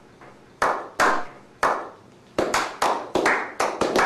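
A slow clap by a small group: single sharp hand claps spaced out at first, then from about halfway through more hands join and the clapping quickens into a denser, overlapping patter.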